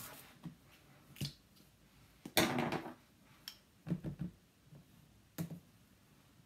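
Plastic tube of acrylic paint being picked up and handled over a table: a few light clicks and knocks, with a longer rustling scrape about two and a half seconds in that is the loudest sound.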